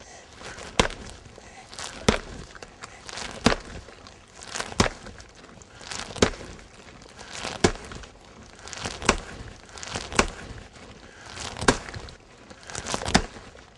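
An 8-pound axe chopping into a roof with steady, easy swings, the back half of the blade striking so the head does not bury itself. About ten sharp chops at an even pace, roughly one every second and a half.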